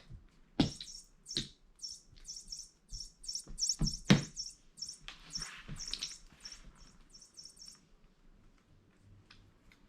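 Electronic chirping bird cat toy giving a rapid run of short, high chirps, about two or three a second, that stop a little before the end. Sharp knocks come in among them as the toy is batted about, the loudest about four seconds in.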